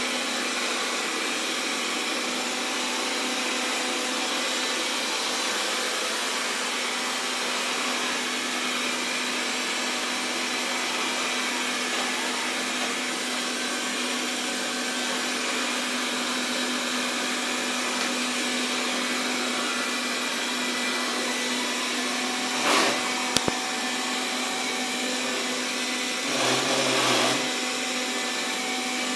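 Xiaomi Mi Robot Vacuum (Mijia) running steadily, its suction fan giving a constant hum. There is a short louder burst with a click about three quarters of the way in, and a louder patch of about a second near the end.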